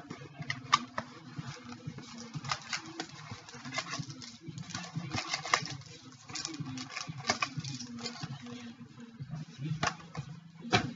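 Hands unwrapping and opening a sealed box of trading cards: crinkling wrapper and rustling cardboard with scattered sharp clicks and taps.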